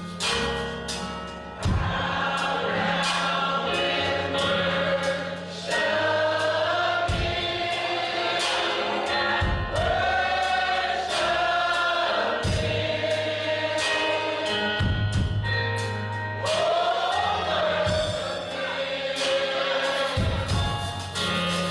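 Gospel choir singing with bass and drums, sustained notes over a steady beat.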